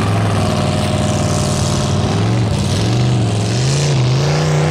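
Pickup truck engine running hard, its pitch holding steady, then dipping and climbing a few times about halfway through before settling higher near the end.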